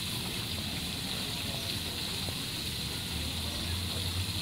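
Steady rush of running water, with a low rumble that swells a little near the end.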